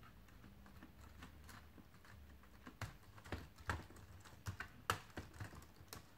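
Faint, irregular plastic clicks and taps as a replacement keyboard is pressed down and seated into a Lenovo ThinkPad T430s, the clicks coming more often from about halfway.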